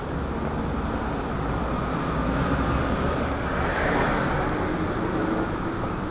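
Busy city street ambience: a steady bed of traffic noise that swells louder about four seconds in.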